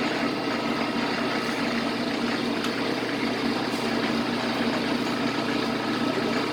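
Victor metal lathe running steadily under power with its feed and lead screw engaged, a constant gear-driven hum and whine.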